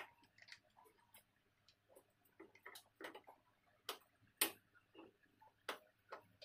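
Faint, irregular clicks and taps from gaming chair parts being handled during assembly, with the sharpest click about four and a half seconds in.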